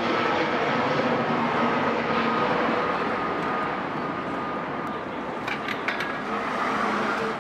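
Steady urban background noise of the traffic or machinery kind, with a few light clicks near the end.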